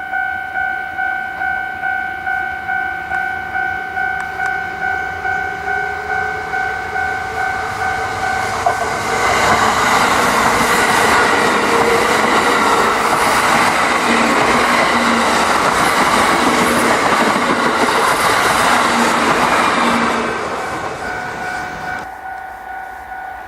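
Railway level crossing warning bell ringing in a steady two-tone pulse, about two strikes a second. About nine seconds in, a Kintetsu train passes over the crossing, and its loud rumble and rail noise drowns the bell for some eleven seconds. The noise dies away and the bell is heard again near the end.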